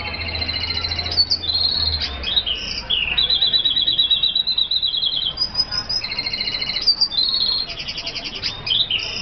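F1 red siskin hybrid singing: fast, rapidly repeated trilled twittering phrases strung together with short breaks.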